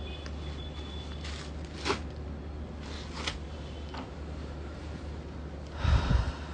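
Cloth rustling as a folded suit fabric is handled and unfolded: a few short rustles, then a louder flapping burst near the end as the fabric is shaken out. A steady low hum runs underneath.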